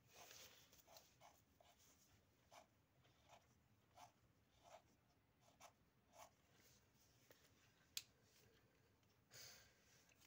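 Faint, short strokes of coloring pens scratching on paper, coming every half second or so, with a single sharp click about eight seconds in.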